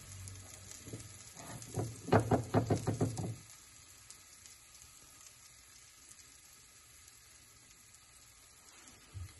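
Pork belly and vegetables sizzling in a Hase-en Casserole Mine clay pot on a gas burner, a steady faint hiss with a quick run of about eight loud pops and spits about two seconds in, then back to a faint sizzle.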